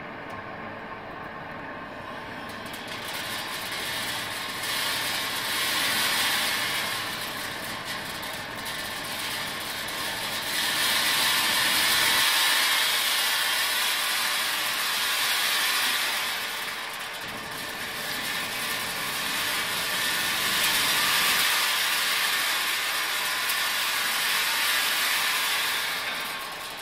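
Sunflower seed roasting line running: a motor-driven vibrating sieve shakes sunflower seeds across its metal pan and onto a mesh conveyor, a dense, steady rattle. The rattle swells and fades several times.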